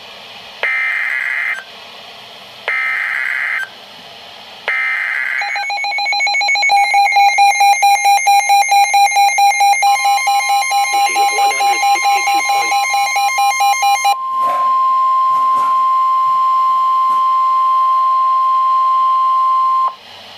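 NOAA Weather Radio Emergency Alert System tones: three one-second bursts of screeching SAME header data, then a harsh jumble of overlapping tones pulsing about four times a second. Partway through, the steady 1050 Hz weather radio warning alarm tone comes in and holds alone for several seconds before cutting off.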